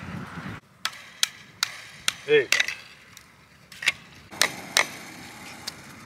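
Hammer striking a wooden fence post, about nine sharp knocks at uneven intervals, fastening a plastic electric-fence insulator to the post.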